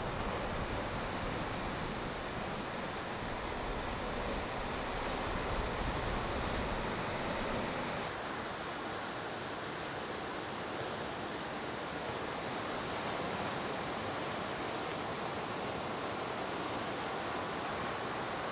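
Ocean surf: waves breaking and washing up a sandy beach, a steady rushing hiss. The deep low rumble drops away about eight seconds in.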